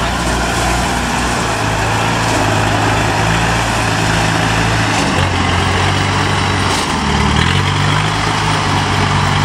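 Tractor and combine harvester engines running hard under load as the tractor tries to pull the harvester, sunk in mud, free. The engine note shifts pitch about five seconds in and again around seven seconds.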